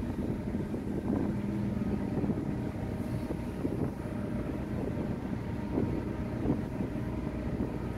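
Steady low rumble and hum of a car ferry's engines underway, with wind gusting on the microphone.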